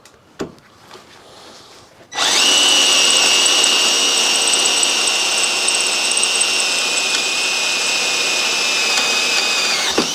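Power drill boring a pre-drilled hole through thick steel. It starts about two seconds in and runs with a steady high whine for about eight seconds. Its pitch sinks slightly before it stops.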